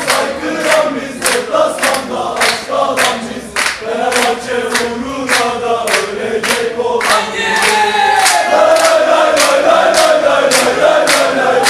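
A crowd of Fenerbahçe football supporters chanting a fan song in unison, with steady hand-clapping a little under two claps a second. About seven seconds in, the singing swells louder into a long, falling sung line.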